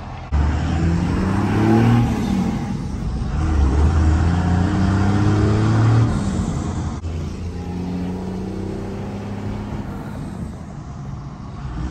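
Second-gen Dodge Ram's 24-valve Cummins diesel, stock except for an aftermarket exhaust, pulling hard through the gears, heard from inside the cab. The revs climb twice with a shift between, then settle to a steadier cruise near the end.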